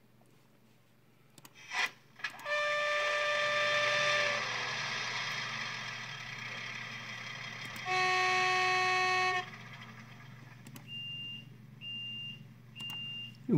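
Sound decoder in an N-scale DB class 614 diesel railcar model playing through its small built-in speaker. A higher horn blast comes about two seconds in, and a lower horn blast about eight seconds in, with a rushing noise beneath them. Near the end there is a run of short high beeps, about one a second.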